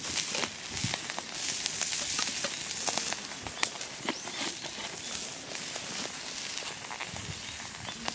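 Wood fire crackling in a small folding fire pit: irregular sharp pops and snaps over a steady hiss.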